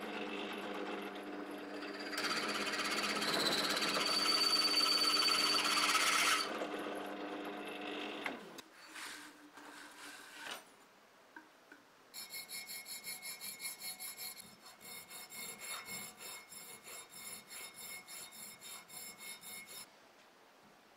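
Drill press motor running while a twist bit cuts through a thin brass plate, the cutting loudest for a few seconds. Then a hand file rasps back and forth in a small square hole in the brass, held in a vise, in quick even strokes, about four a second.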